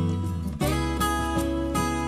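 Background music led by plucked acoustic guitar, with a new chord struck about half a second in.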